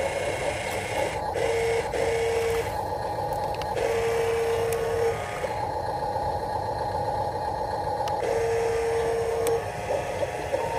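Huina 1573 radio-controlled dump truck raising its tipper bed and dumping dirt: a small electric motor hums steadily. Through it, a steady electronic tone sounds three times, each for about a second.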